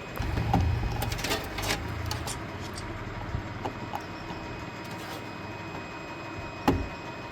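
Handling noise from work on a PC case and its front-panel cables: a low rumble with scraping in the first few seconds, scattered light clicks, and one sharp knock near the end.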